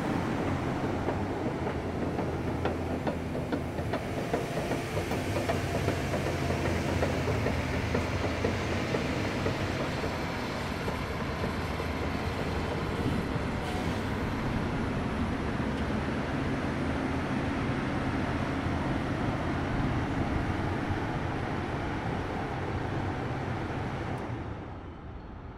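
A Kobelco SK350LC-10 crawler excavator's diesel engine running steadily: a low drone with a rough mechanical rattle over it. The sound drops away near the end.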